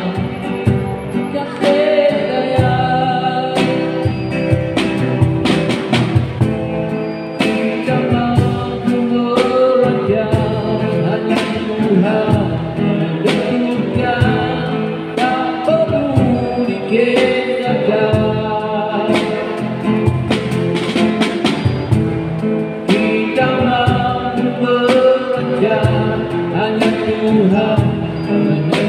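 Live band: a man sings a Malay song over a strummed, amplified acoustic guitar. Drum and cymbal hits from sticks keep a steady beat.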